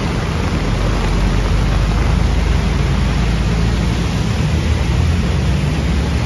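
Traffic on a rain-wet city road: engines of cars, scooters and a truck running, with tyres hissing on the wet surface, a steady wash of noise over a low rumble.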